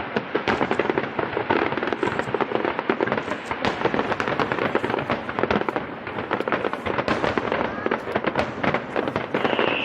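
Fireworks display going off densely: a rapid, continuous crackle of many small bangs a second, with bigger reports among them. Near the end a high whistle starts and slowly falls in pitch.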